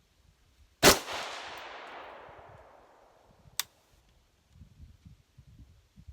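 A single shot from a Mk12 Mod1 clone, a 5.56 mm AR-type rifle, about a second in, with a long echo that dies away over about two seconds. A short, sharp click follows a few seconds later.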